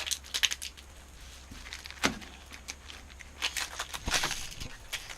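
Foil wrapper of a Pokémon booster pack crinkling and rustling in short irregular crackles as it is tugged at in an attempt to tear it open.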